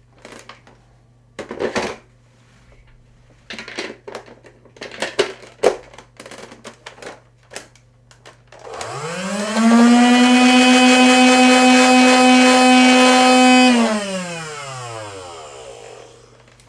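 Nerf Rival Nemesis blaster running on D batteries: a few sharp handling clicks, then about halfway through the flywheel motors spin up with a quickly rising whine. The whine holds steady and loud for about four seconds, then winds down, falling in pitch as the motors coast to a stop.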